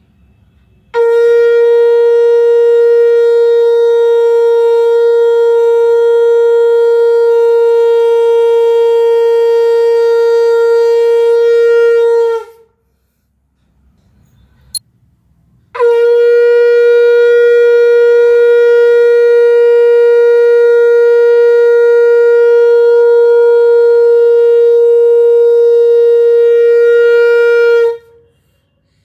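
Conch shell (shankh) blown in two long, loud blasts of about eleven and twelve seconds, each held on one steady note. A brief click falls in the gap between them.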